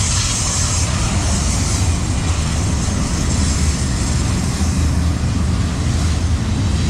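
Freight train of enclosed autorack cars rolling steadily past, a continuous low rumble of steel wheels on rail. A high hiss fades out within the first two seconds.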